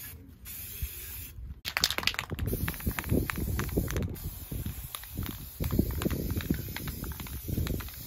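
Aerosol can of flat black spray paint hissing in repeated short bursts as it is sprayed onto metal door hinges.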